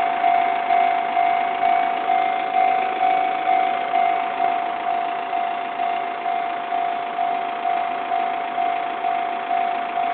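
Electronic level-crossing alarm bell ringing, a single bell-like tone struck evenly about twice a second, each strike dying away before the next.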